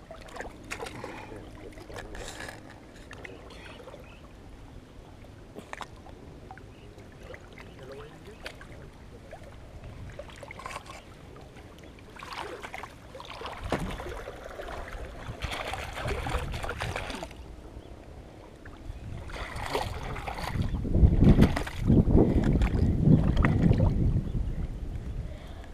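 Pond water sloshing and splashing around people wading chest-deep, louder and splashier in the second half. A loud low rumble takes over for the last few seconds.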